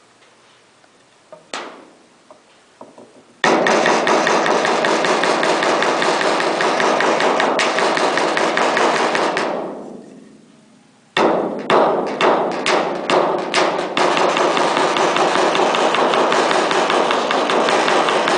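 Rapid metal-working impacts from hammering or an impact tool in roof repair: a few light knocks, then a loud dense run of rapid blows that dies away about ten seconds in. After a short pause come separate strikes that build into another continuous run.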